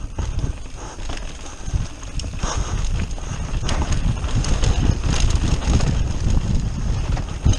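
Mountain bike ridden fast downhill on a dirt forest trail: tyres rumbling over the ground, with many quick rattles and knocks from the bike as it hits bumps and roots.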